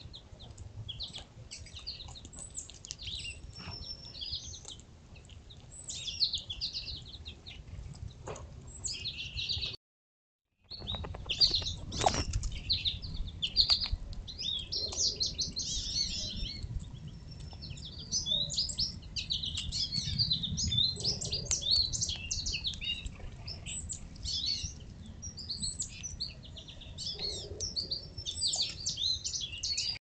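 Several songbirds chirping and singing in quick, overlapping phrases. A brief gap of total silence comes about ten seconds in, and a single sharp click sounds soon after.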